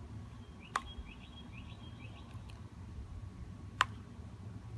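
Two sharp clicks about three seconds apart over a steady low hum. A few faint, quick high chirps, like a small bird, come in the first two seconds.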